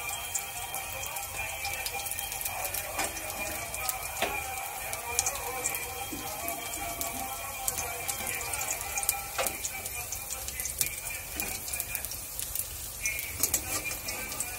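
Batter-coated vegetable pakoras shallow-frying in hot refined oil in a kadai: a steady sizzle dense with fine crackling pops, with a few sharper ticks.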